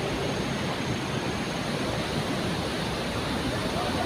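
Steady rushing of flowing river water or a waterfall, an even hiss and roar with no breaks.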